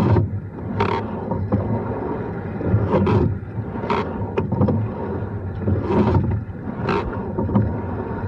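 Rowing shell under way at a steady stroke. A pair of sharp oar-and-oarlock noises comes about every three seconds, once each stroke, over a steady rumble of water along the hull.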